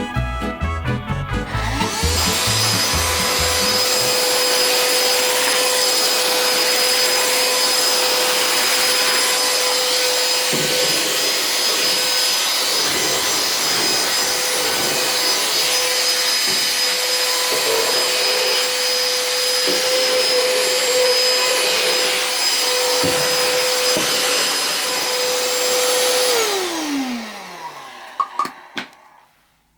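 Small cordless handheld vacuum cleaner switched on, its motor running with a steady whine and rush of suction for over twenty seconds. It is then switched off and the motor winds down in a falling whine.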